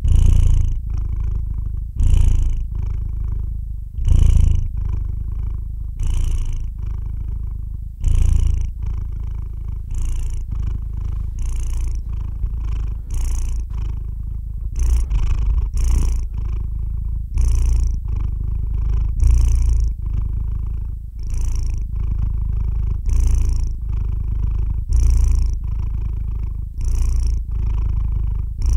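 Domestic cat purring steadily while asleep, close up, the purr swelling with each breath about every two seconds.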